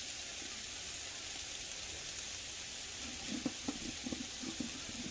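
Chicken frying in oil in a pan, a steady sizzling hiss, with a few soft clicks and short low sounds coming in near the end.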